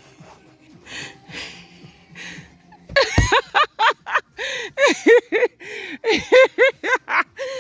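Laughter in quick repeated bursts, starting about three seconds in just after a low thump, and going on in short pulses of three or four a second. The first three seconds hold only soft breathy sounds.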